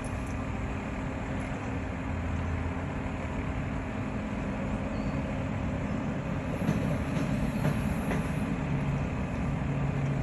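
Tower crane machinery running with a steady mechanical hum while a panel is lowered, with a low tone that comes in about two seconds in and a deeper tone near the end.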